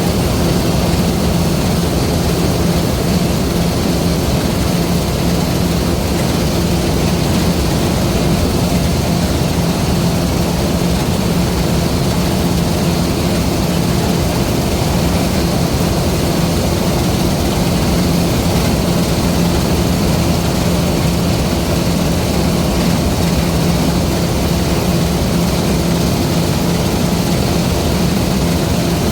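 LOVOL RG130 EVO rice combine harvester running steadily under load, its engine hum and the whirr of the harvesting machinery holding an even pitch.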